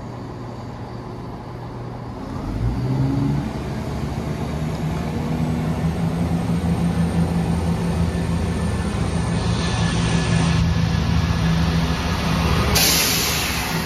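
Class 168 diesel multiple unit pulling out: its underfloor diesel engines step up from idle to a louder, steady power note about two and a half seconds in as the train gets under way. Near the end there is a brief rush of hiss as the coaches pass close.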